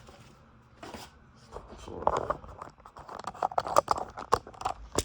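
Paperwork being handled and pulled out: paper rustling and crinkling with many small sharp crackles. It starts about a second and a half in and is busiest in the last two seconds.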